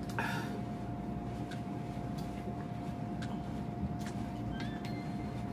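Chewing crispy fried chicken: a few scattered sharp crunches and mouth clicks over a steady low background hum with a faint constant tone.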